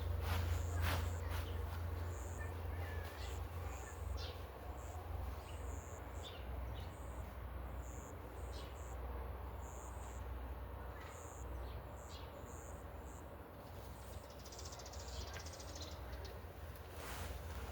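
Birds chirping, with short high calls coming irregularly, over a low steady rumble.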